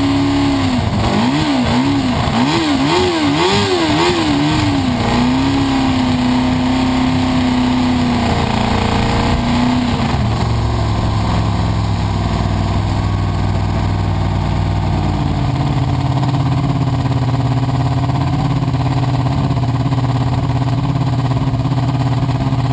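Formula SAE race car engine run for a stationary noise test. It is revved up and down several times, held at a steady high speed, and dropped to a lower steady speed about ten seconds in. Near the end the revs fall away as it is shut off.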